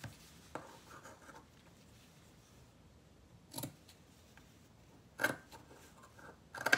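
Scissors snipping notches into a fabric seam allowance: a few short, sharp snips spaced a second or more apart, mostly in the second half.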